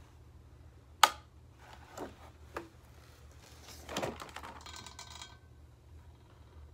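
Plastic squeeze bottle of chocolate syrup being squeezed over a glass of milk: a sharp click about a second in, then several softer noises, the biggest about four seconds in.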